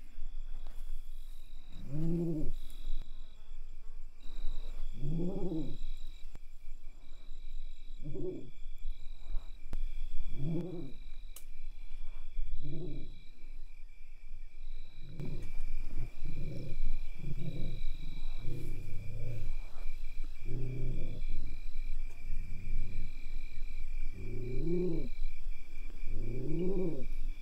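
Repeated low animal calls, each rising then falling in pitch, about every two to three seconds and coming closer together in the second half, over steady insect chirring.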